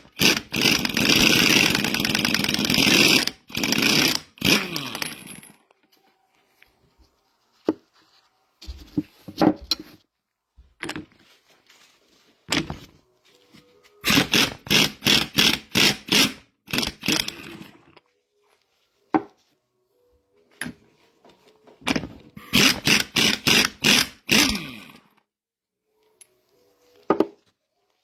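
Power driver running in short bursts and winding down, backing bolts out of a mini excavator's hydraulic control valve body, with scattered clicks and knocks of parts being handled between bursts.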